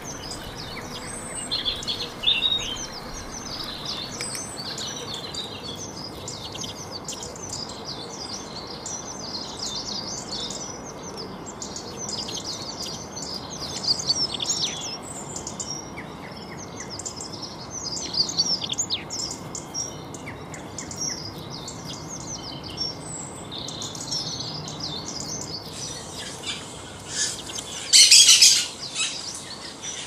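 Small songbirds chirping and singing in a busy mixed chorus of short, quick notes. Near the end, one bird sings much louder, shriller bursts of song.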